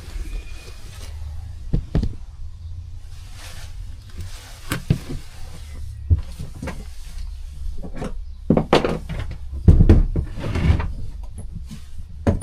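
Hand tools and metal parts clinking and knocking as work begins on a motorcycle frame bolt, over a low steady hum. The knocks are sparse at first and come thicker and louder in the second half.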